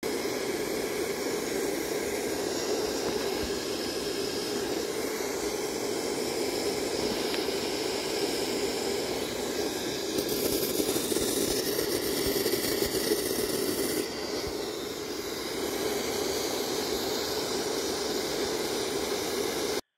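Small gas torch flame burning with a steady hiss while it heats a seized brake drum on its axle shaft so the puller can break it free. The hiss grows louder and harsher between about ten and fourteen seconds in.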